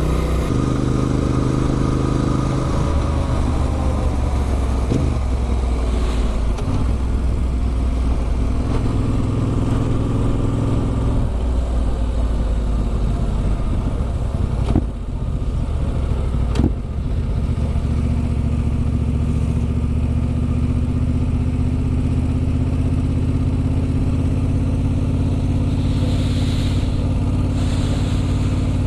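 Motorcycle with an Arrow aftermarket exhaust running steadily on the road, its engine note shifting in pitch, with two brief dips in the sound about halfway through, a couple of seconds apart.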